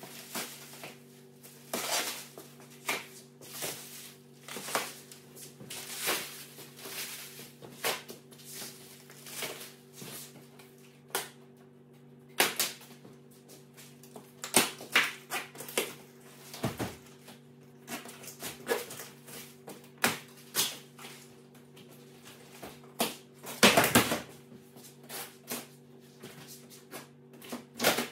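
Cardboard and plastic packaging rustling and crinkling in irregular bursts as it is pulled away from a boxed cast-iron welding table top, the longest and loudest crunch near the end. A steady low hum runs underneath.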